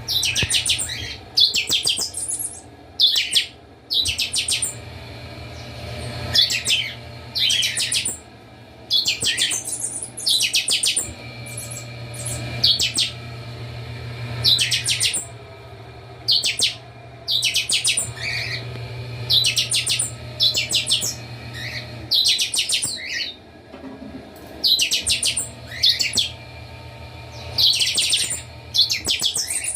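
Several chanchão songbirds singing at once, with short, loud, high-pitched song phrases following one another every second or two. A steady low hum runs underneath.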